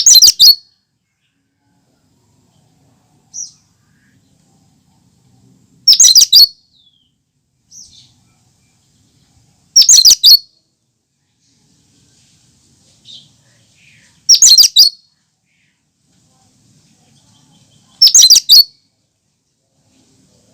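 Cucak kinoi calling: a short burst of rapid high notes, repeated five times about every four seconds, with faint single notes in between.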